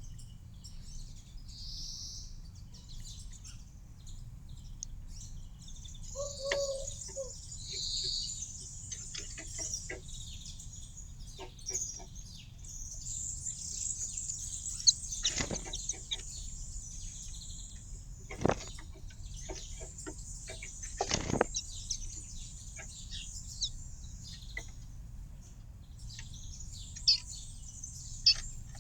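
Small songbirds chirping and twittering, thickening into dense twittering in the middle, with three sharp knocks along the way and one brief lower call about six seconds in.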